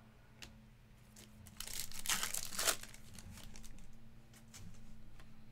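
Foil wrapper of a Topps Cosmic Chrome trading-card pack being torn open and crinkled, loudest for about a second from a second and a half in, with a few light clicks of card handling.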